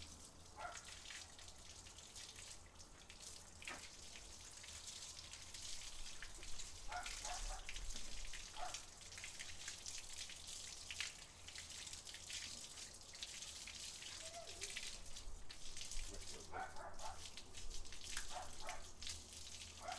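Faint water from a garden hose pattering and dripping on wet concrete and a dog being rinsed, with a few brief, short sounds scattered through it.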